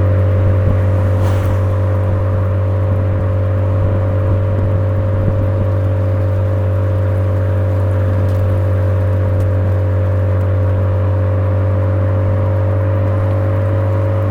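Suzuki Swift Sport ZC33S's 1.4-litre turbocharged four-cylinder through a Fujitsubo aftermarket muffler, running at steady revs with a loud, constant low exhaust drone.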